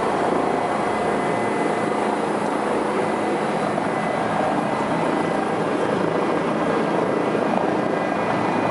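Helicopter engine and rotor running steadily, heard from inside the cockpit: a dense, even rushing noise with thin, steady high whines over it.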